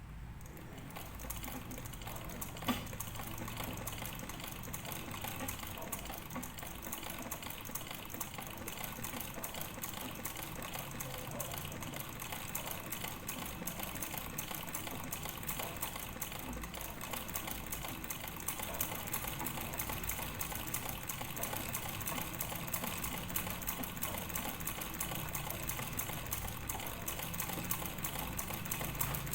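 Sewing machine running steadily, a fast, even clatter of stitching that grows slowly louder. One sharp click about three seconds in.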